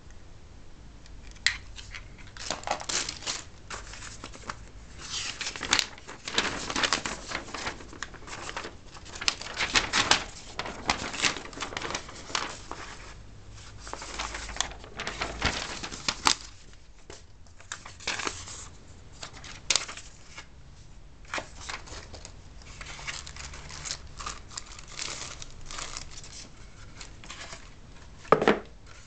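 A folded paper instruction sheet and packaging being handled and unfolded: irregular bursts of paper rustling and crinkling, with a sharp knock near the end.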